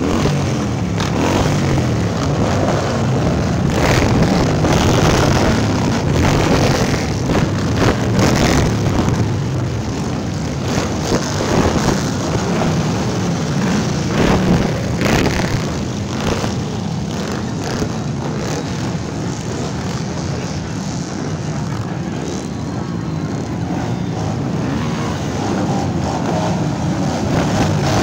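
A procession of motorcycles riding past close by, several engines running at once with their pitch rising and falling as the bikes go by.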